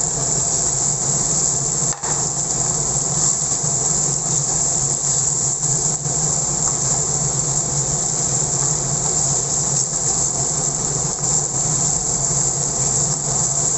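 Chicken pieces in red chili sauce sizzling and bubbling steadily in a wok after a splash of water is added, over a steady low hum.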